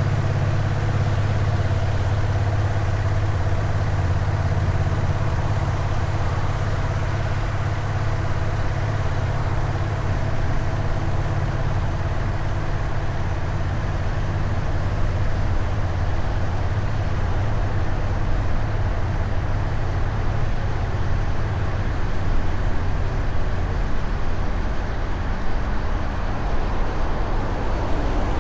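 Honda Rebel 1100 DCT's parallel-twin engine running at a steady cruise of about 60 km/h through its stock exhaust, with an even, unchanging engine note. From about halfway through, a low wind and road rumble grows under the engine sound.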